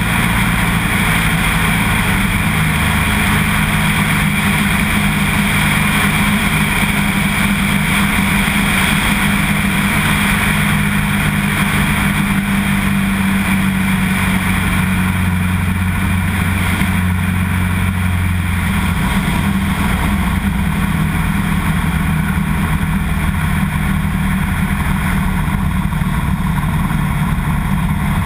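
Single-engine floatplane's piston engine and propeller droning steadily, with wind rushing over the microphone. About two-thirds through the low engine hum drops away, as power comes off for the descent to a water landing.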